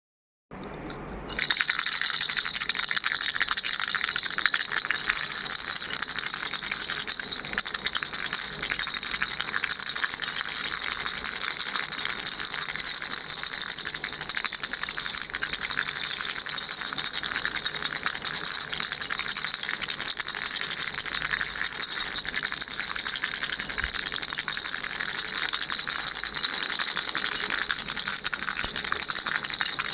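Baby's toy rattle shaken quickly and without a break, a dense stream of small clicking beads. It starts softly and gets louder about a second and a half in.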